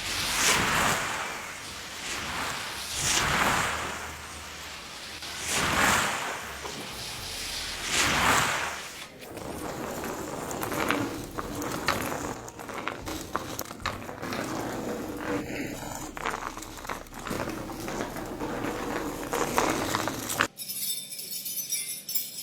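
Foley sound effects: four swelling whooshes about every two and a half seconds, then a long run of dense crackling and clicking that cuts off suddenly near the end.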